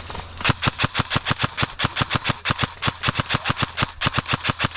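Airsoft gun firing a long full-auto burst of about nine sharp shots a second, starting about half a second in.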